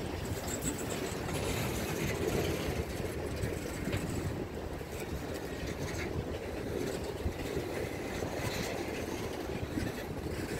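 Freight train of boxcars rolling slowly past: a steady rumble of steel wheels on rail, with scattered clicks.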